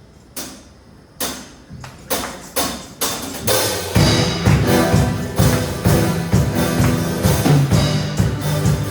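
Church worship band starting a song: a few separate percussion hits, coming closer together, then the full band with bass and drums comes in about four seconds in.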